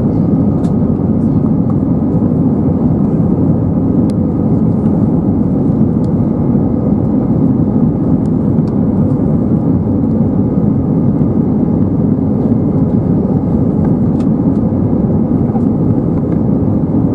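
Airbus A320 cabin noise heard from a seat over the wing: the steady, dull rush of airflow and the IAE V2500 turbofan engines during descent, with few high sounds.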